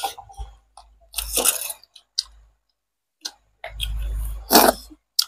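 Mealtime handling sounds: short clinks and clicks of stainless steel plates and bowls on a concrete floor, with two longer rustling noises, the louder one about four seconds in.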